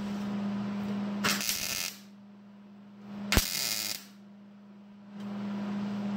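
Welding tacks on truck-bed sheet metal: two short bursts of crackling noise about two seconds apart over a steady electrical hum. A sharp click comes with the second burst, and the hum drops out for about three seconds in the middle.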